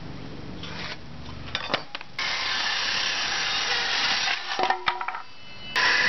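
Black & Decker Firestorm 18V cordless circular saw cutting through an untreated fence board for about two seconds, then a few clicks and clinks, and the saw cutting again near the end.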